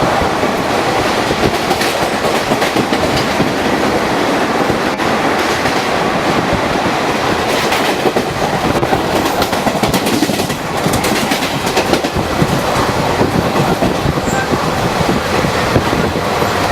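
ICF passenger coaches of an express train rushing past at speed, their wheels clattering over the rail joints in a loud, continuous clickety-clack.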